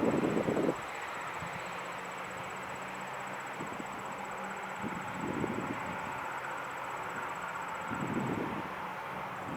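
CN double-stack freight train rolling along the rails, a steady hiss and rumble from the cars. A heavy low rumble drops away sharply just under a second in.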